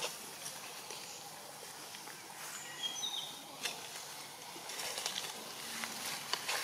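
Outdoor forest ambience: a steady high hiss with scattered small clicks and rustles, and a few brief, high chirps about halfway through.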